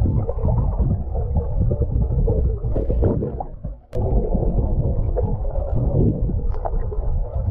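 Loud, low rumbling noise with scattered clicks. It cuts out abruptly for a split second about four seconds in, then carries on.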